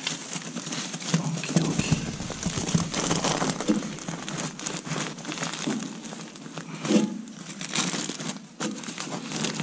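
Foil-covered insulated flexible ventilation duct crinkling and crackling irregularly as it is handled and worked onto a round duct spigot.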